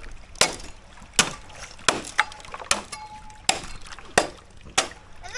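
Machete chopping into bamboo: seven sharp strikes at a steady pace, about one every three quarters of a second.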